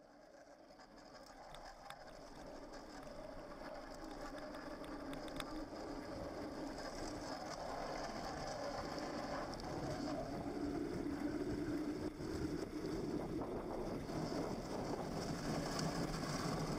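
Hot Wheels XL pedal go-kart rolling fast down an asphalt road: a steady rush of wheel and wind noise that grows louder as the kart picks up speed, with a few light clicks in the first seconds.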